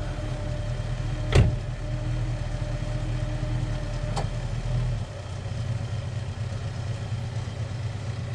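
Vehicle engine running steadily, with one sharp thump about a second and a half in and a lighter click a few seconds later.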